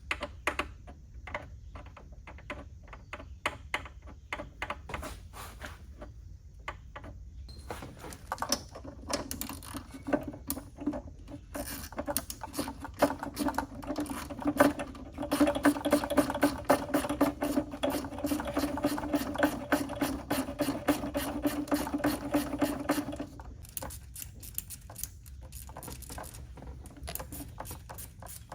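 Socket ratchet clicking rapidly in runs, running down the new intake manifold's bolts. For about ten seconds in the middle, a steady hum sounds under the clicking.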